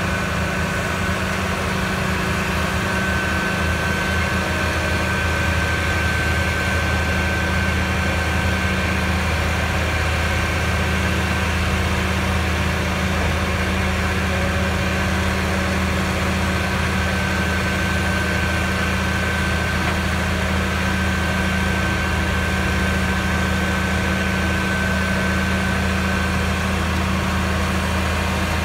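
Rotary drilling rig's diesel engine running steadily, with a thin high whine that comes and goes.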